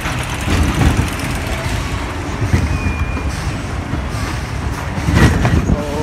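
Roller coaster car running along its steel track: a loud, steady rumble with occasional knocks.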